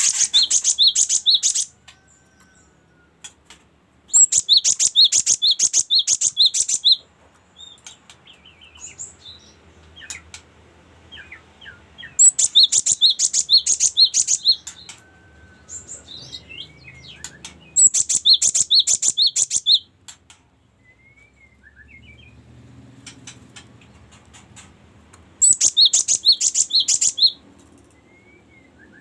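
Caged cinereous tit singing. It gives five bouts, each two to three seconds long, of rapidly repeated high two-note phrases, with soft calls between the bouts.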